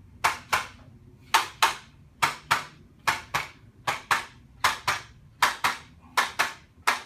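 Sharp taps in pairs, about one pair a second, from rhythmic percussive tapping on the patient's back during a chiropractic adjustment.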